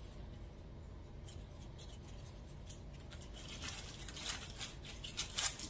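Crackling rustle of artificial fall leaves and the pine cone's scales as a pine cone is pushed down into the centerpiece's foliage, starting about three and a half seconds in.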